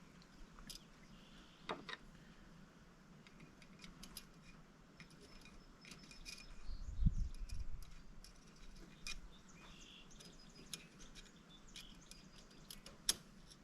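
Faint scattered clicks and light metallic ticks of hand tools and small valve-train parts being handled while valve springs, retainers and keepers are fitted to an engine's cylinder head, with a dull thump about seven seconds in.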